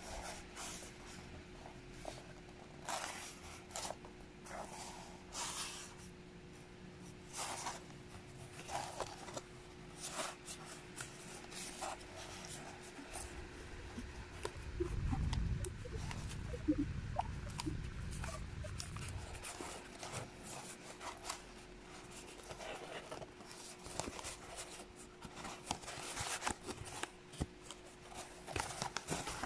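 Cardboard pieces being handled, pressed together and rubbed: irregular short scratchy rustles and scrapes, with a low rumble for a few seconds in the middle.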